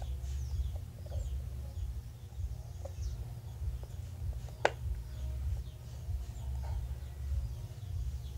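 Small birds chirping faintly and repeatedly over a steady low rumble, with one sharp click about four and a half seconds in.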